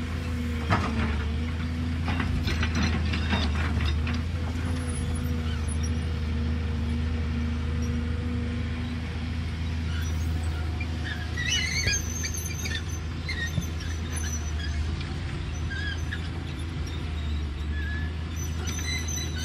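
JCB tracked excavator working: its diesel engine runs steadily with a steady hydraulic whine while the arm and bucket dig and swing. There are a few knocks in the first few seconds and high squeaks about halfway through and again near the end.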